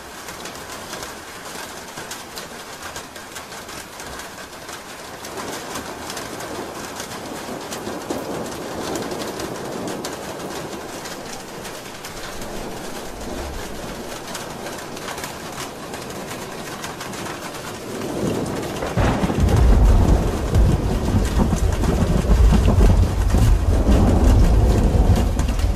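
Steady rain falling on a roof. About nineteen seconds in, a deep rumble of thunder builds and becomes the loudest sound.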